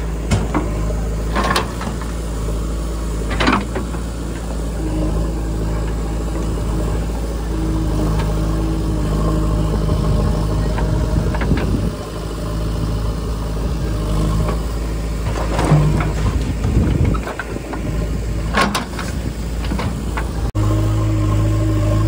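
Diesel engines of a JCB 3DX backhoe loader and a tractor running steadily as the backhoe loads mud, with a few short sharp knocks. The engine note changes suddenly near the end.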